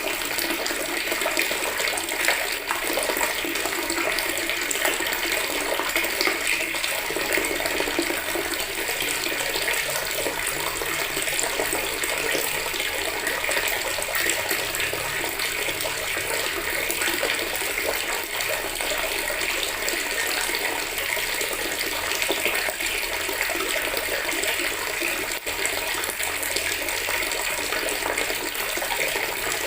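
Water from a tap pouring steadily into a bucket, a continuous, even splashing rush.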